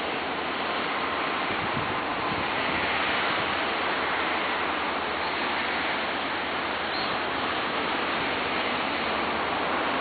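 Ocean surf breaking and washing up a sandy beach: a steady rush of small waves, swelling slightly a few seconds in.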